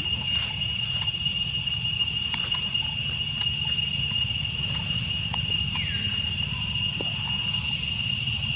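Steady high-pitched drone of insects in forest, over a low rumble, with a few faint clicks and a short falling call about six seconds in.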